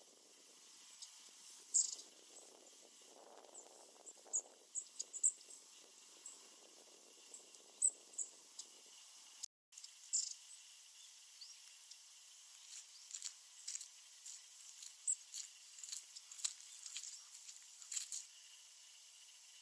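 Long-tailed tits of the Hokkaido subspecies (shima-enaga) calling: many short, thin, high-pitched notes scattered irregularly, some louder, as the flock moves about. A low rushing noise underlies the first half and stops abruptly about halfway through.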